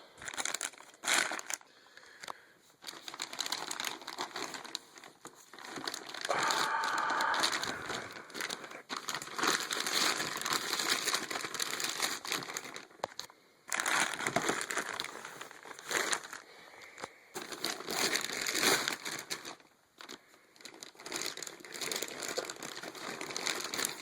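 Packaging crinkling and rustling in irregular bursts as a new air rifle is unwrapped from its box, with a short squeaky scraping stretch about a quarter of the way in.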